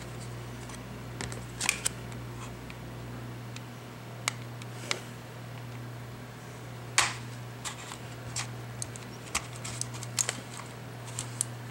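Scattered light clicks and scrapes of a plastic card prying along the seam of a plastic computer mouse shell, feeling for the hidden latches; the sharpest clicks come about two seconds in and about seven seconds in, with a quicker run of small ones near the end.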